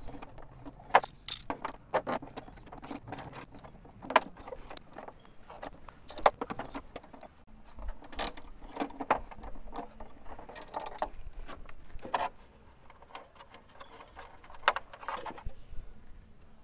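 Ratchet wrench with a 10 mm socket on an extension clicking and clinking in short, irregular spells while undoing a nut.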